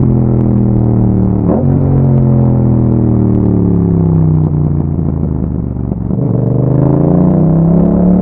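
Yamaha MT-07's parallel-twin engine through an Akrapovic exhaust, under way: the engine note breaks briefly about a second and a half in, then falls steadily as the bike slows, and rises again near the end as it accelerates.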